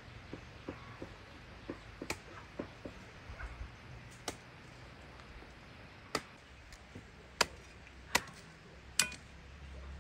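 A series of sharp knocks at uneven intervals, about six loud ones a second or two apart in the second half, with fainter taps between.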